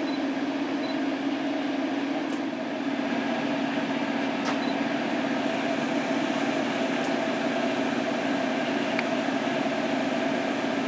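A steady mechanical hum with a low, even tone, and faint short clicks about two seconds and four and a half seconds in.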